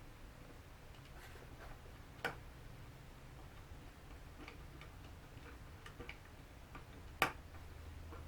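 Light, irregular clicks and taps from small screwdriver work and handling of the drone's plastic parts during reassembly, with two sharper clicks about two seconds and seven seconds in.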